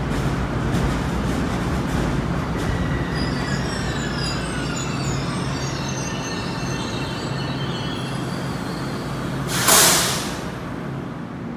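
Metro-North commuter train rolling slowly past at a platform, with a steady low hum and thin, high wheel squeal that slides downward partway through. About ten seconds in comes a short, loud hiss.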